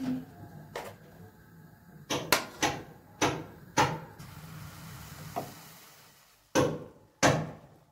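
Kitchen handling sounds: a run of sharp knocks and clatters, about eight in all, with a lull of a couple of seconds before the last two.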